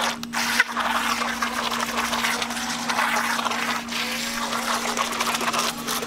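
Syma remote-control toy jet ski zigzagging in a small pool: its small electric motor whirring at a steady pitch over the hiss and splash of the water it churns up.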